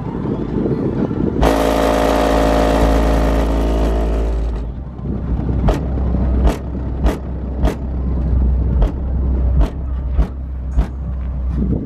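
A bass-heavy song played through two Rockford Fosgate P3 12-inch subwoofers in a ported box in a car's trunk, heard from outside the car. The deep bass line runs throughout, with a brighter, fuller stretch about one to four seconds in. Then sharp clicks land on the beat over the bass.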